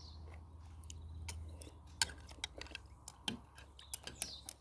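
Irregular sharp clicks and taps, scattered from about halfway through, over a low steady hum.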